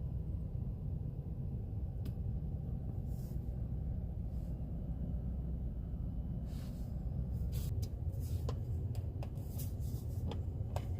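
A steady low rumble, with scattered light clicks and rustles of small objects being handled in the second half.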